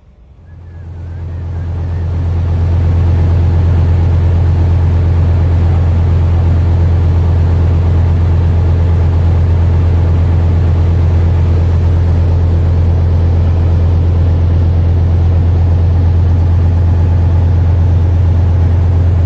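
Riverboat engine running at steady speed, heard on board as a deep, even drone that fades in over the first two seconds and then holds level.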